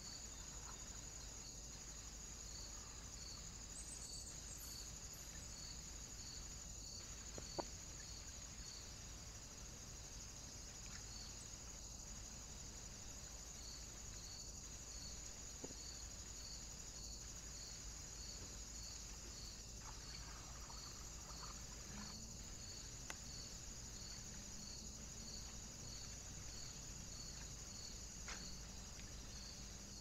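Faint, high-pitched insect chirring with a regular pulse of about one and a half beats a second, over a low steady hum. A few faint clicks stand out.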